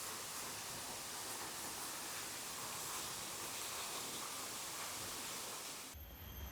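Steady rushing of a waterfall. About six seconds in it cuts to a quieter scene of insects holding steady high-pitched tones over a low rumble.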